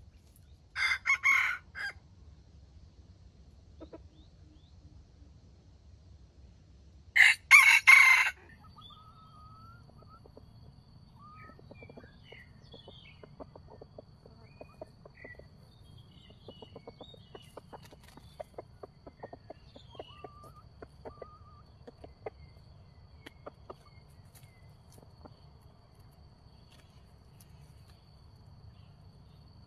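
Decoy junglefowl cock crowing twice, each crow about a second long and the second about six seconds after the first and louder. Then faint scattered clucks and short calls follow for a while.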